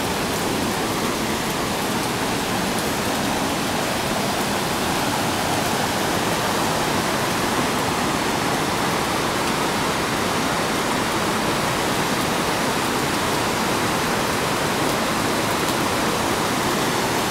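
Radovna River rushing steadily through the rapids of the gorge, a constant loud wash of water.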